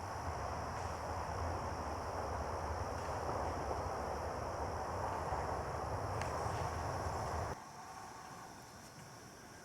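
Outdoor ambience: a steady rushing noise with a low rumble that cuts off abruptly about three-quarters of the way through, leaving a quieter ambience with faint insect-like high tones.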